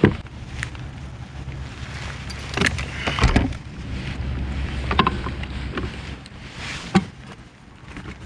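Scattered knocks and clatters of handling on a kayak, over a low steady wind rumble on the microphone.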